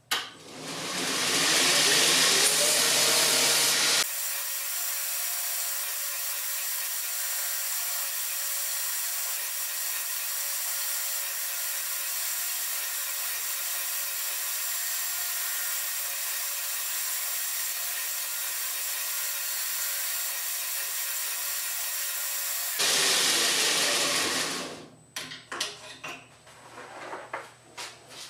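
2x72 belt grinder with a surface grinding attachment grinding a taper into a thick wooden blank, the belt's abrasive hiss against the wood. It starts up loud with a rising whine and settles into steadier, quieter running with a constant whine. About 23 s in it gets loud again, then winds down with a few clicks near the end.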